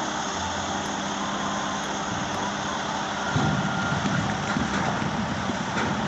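Diesel engine of a Volvo A45 articulated dump truck running steadily while the hydraulic rams raise the loaded body to tip. About three seconds in, a deeper, rougher rumble joins as the earth and rock start to pour off the back.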